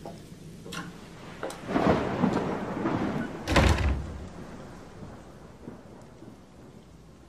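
Thunder with rain: a rumble builds about two seconds in, then a loud deep clap about three and a half seconds in that fades away over the next couple of seconds.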